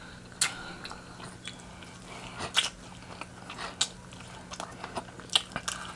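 Close-miked eating of crispy fried chicken: scattered sharp crunches from biting into the breading between quieter chewing, over a faint steady low hum.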